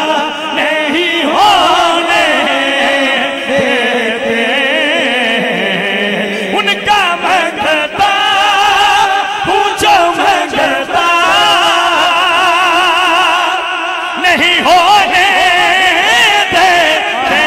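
A man singing a naat into a microphone, drawing out long ornamented notes with a wide vibrato, with a short pause for breath about three quarters of the way through.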